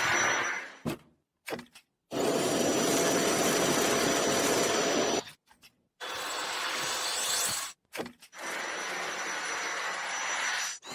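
Cordless vacuum cleaner running: a steady rush of air with a thin motor whine, heard in four stretches that start and stop abruptly, with short silent gaps between them.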